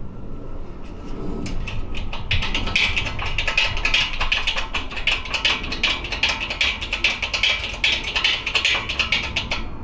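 Background music with a fast, busy beat and guitar.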